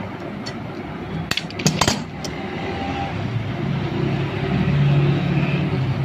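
Hands handling a rewound fan-motor stator and its wire leads: a few sharp clicks and clinks about a second and a half in. Under them runs a low hum that swells to its loudest near the end and then fades.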